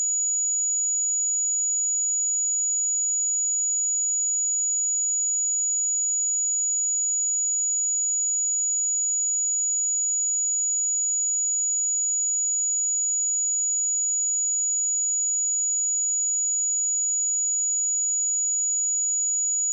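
A steady, unbroken high-pitched sine-wave test tone at 6856 Hz, a single pure pitch held at a constant level.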